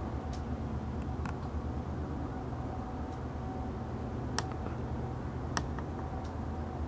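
Steady low background rumble with a faint steady hum, broken by a few faint sharp clicks: one near the start, one about a second in, and two more in the second half.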